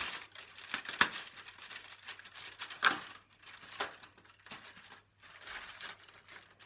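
Cardboard and plastic of a chocolate advent calendar crinkling and clicking as a door is pried open and the chocolate is worked loose from its tray, with a few sharp snaps, the loudest about three seconds in.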